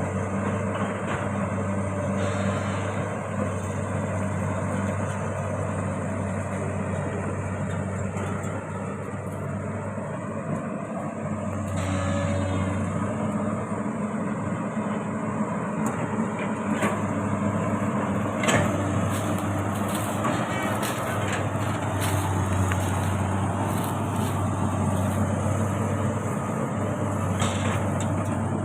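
Excavator's diesel engine running steadily under working load, swelling now and then, with a few sharp knocks, the clearest about eighteen seconds in.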